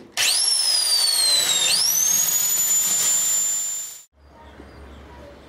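Electric drill running into the edge of a hole in the shed's wooden wall to cut a notch for a wire. Its whine sags under load for about a second and a half, then climbs back to full speed and holds until it cuts off.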